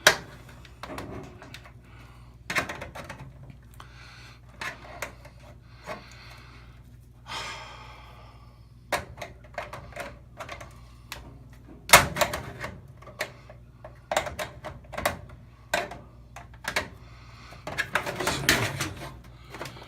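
Irregular clicks, taps and knocks of plastic and metal parts being handled, with a short scrape about a third of the way in and a cluster of louder knocks near the end, as a replacement washer temperature switch is worked to lock into the control panel. A steady low hum runs underneath.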